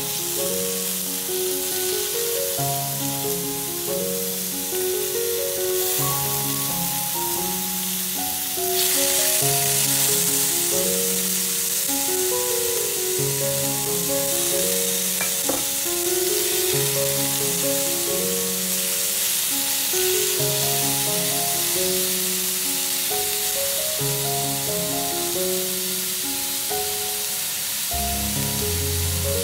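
Marinated meat slices sizzling as they fry in hot oil in a steel frying pan, the sizzle growing louder about nine seconds in. A gentle melodic background track plays over it.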